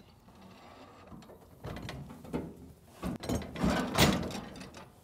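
Galvanised steel sheep turning crate clanking and rattling as its foot-worked gate mechanism is operated to let a sheep in, with a run of metal knocks from about a second and a half in and the loudest clank about four seconds in.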